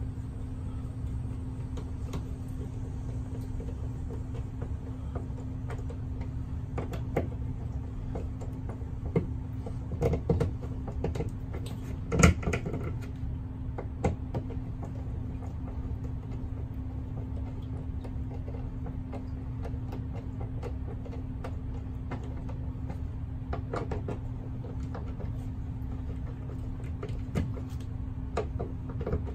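Phillips screwdriver turning a GFCI outlet's mounting screws into the electrical box: scattered metal clicks and scrapes, the loudest about twelve seconds in, over a steady low hum.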